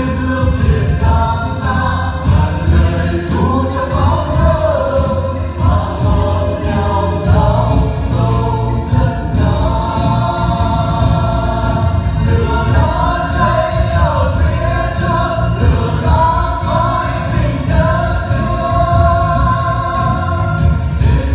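A group of voices singing a song together over loud backing music with a strong bass.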